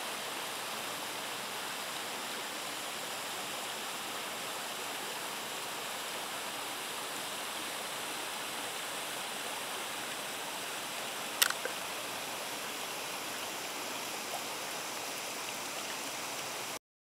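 Steady rush of flowing creek water, with one sharp click about two-thirds of the way through; the sound cuts off abruptly near the end.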